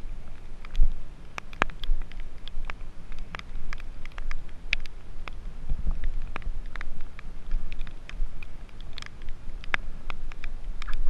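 Irregular clicks and knocks of a person in gloves and wetsuit boots clambering over a half-sunken fibreglass sailboat, gripping its metal rails and lines, over a steady low rumble.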